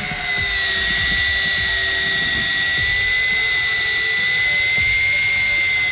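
Electric deep-drop fishing reel's motor whining steadily as it winds in line. Its pitch dips slightly about a second in and creeps back up near the end.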